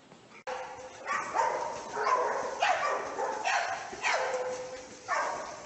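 A dog giving a run of barking, yowling calls, about one every second, many of them falling in pitch. The calls begin abruptly about half a second in.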